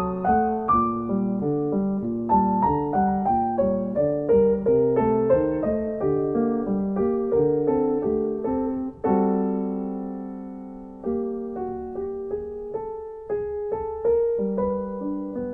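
Solo piano music playing a steady run of notes, with one chord struck and left to ring for about two seconds about nine seconds in.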